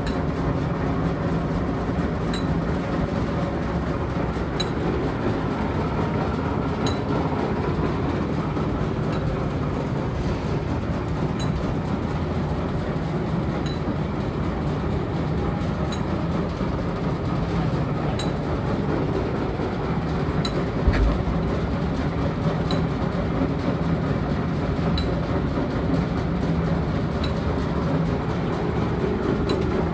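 Niles engine lathe running, a steady mechanical rumble of its gearing with a faint light tick repeating about every two seconds. A single low thump comes about two-thirds of the way through.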